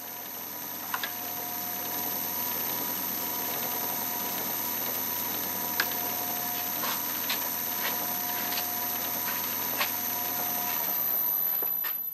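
Boxford metal lathe running with a steady motor and drive hum, a few faint ticks over it. Near the end it is switched off and the hum stops.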